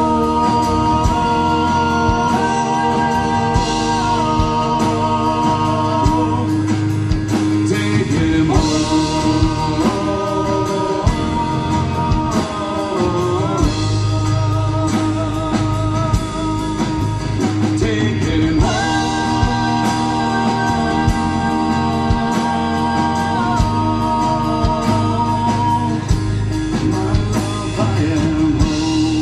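Live band playing a folk-rock song: acoustic guitar, electric bass and drum kit, with long held notes sung without words over them.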